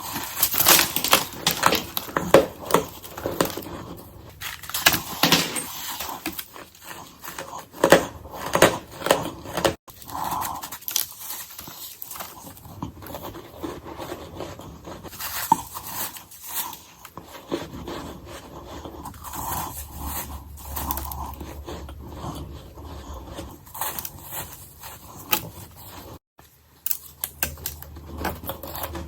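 Close-miked ice being bitten and chewed: a quick run of crisp crunches through the first ten seconds, then softer, sparser chewing and crunching.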